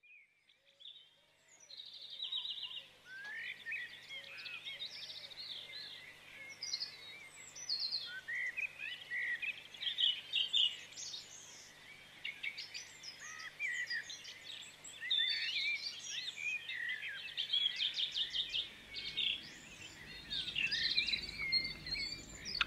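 Dawn chorus of several songbirds: overlapping chirps, whistles and quick trills, with a faint steady low hum beneath.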